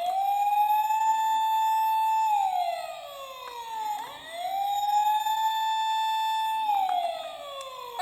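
Toy emergency-vehicle minicar's electronic siren wailing: the pitch rises, holds high for about two seconds, then slides down, twice over.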